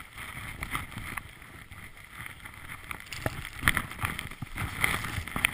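Wind rushing over the microphone as a skier descends through deep powder, with the skis hissing and spraying through the snow. The noise grows louder about halfway through.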